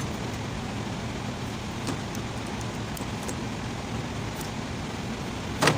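Work on unbolting a starter motor: a few light metal clicks and one sharp clank near the end, over a steady background rumble.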